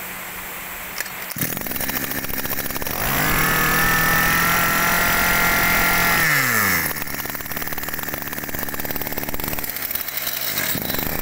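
Small 23cc two-stroke engine of a Shindaiwa 230 brush cutter running at idle, revved up about three seconds in and held at high speed for about three seconds, then dropping back to idle.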